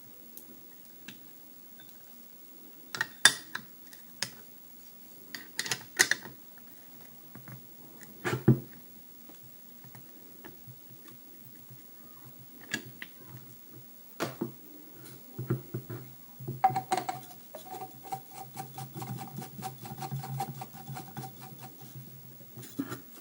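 Scattered clicks, knocks and clunks of a cordless angle grinder and its parts being handled while it is set up. Over the last several seconds there is a faint steady hum with fast, even ticking.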